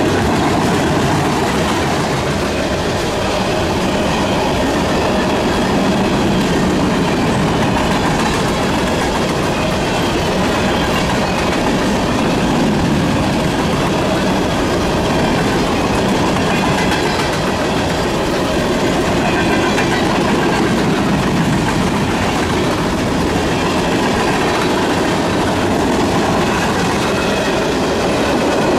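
Freight train cars rolling past close by: a steady, loud rumble and clatter of steel wheels on the rails that holds even throughout.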